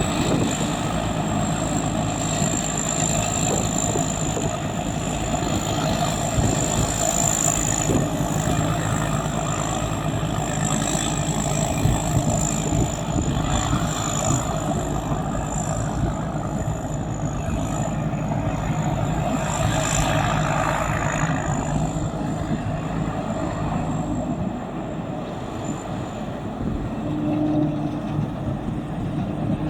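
Combine harvester's diesel engine running steadily, with a thin high whine over it; the engine eases off slightly near the end before picking up again.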